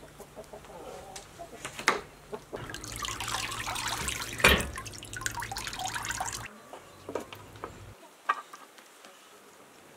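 Water splashing and running off as a plucked goose is dunked and lifted in a metal basin of water, with one loud splash midway. Before and after come a few light knocks of handling.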